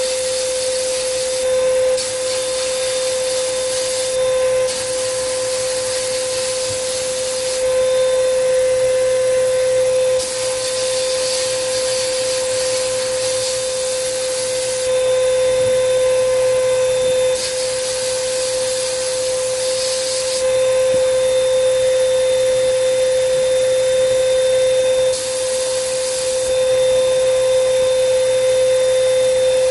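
Sandblast gun in a blast cabinet firing iron oxide media at 90 psi: a steady blasting hiss that steps louder and softer every few seconds, over a steady hum.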